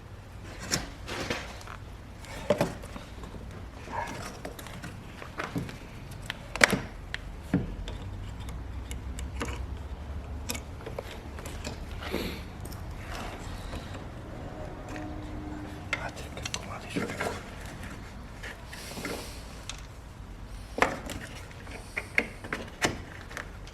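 Scattered clicks, taps and knocks of hands working plastic headlight parts while the headlight's electrical connector is pushed back on.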